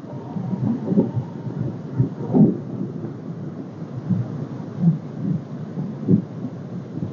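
Strong wind buffeting the microphone in uneven gusts, a low rumbling that surges and drops. The wind is steady at about 30 mph with bigger gusts.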